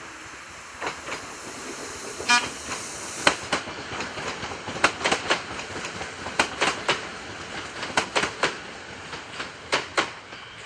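A passing electric train's wheels clicking over the rail joints in quick pairs and groups. The clicks begin about a second in, with a brief horn toot about two seconds in.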